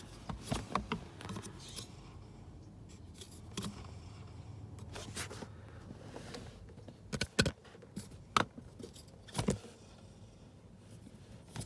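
Old blower motor from a 2017 Mitsubishi Outlander's heater and A/C fan, handled and turned by hand, making a faint rub, with scattered clicks and knocks as it is handled. The rub is a sign of the failing motor, which the owner believes overheated and is going out.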